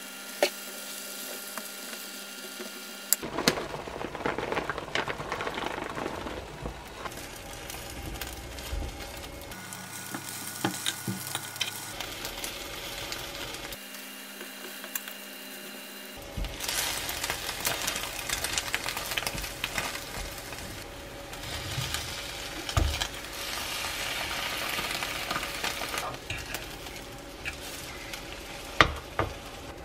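Beaten egg with diced ham sizzling in a rectangular nonstick omelette pan, with the scrapes and a few sharp clicks of a fork and spatula as the egg is folded and rolled.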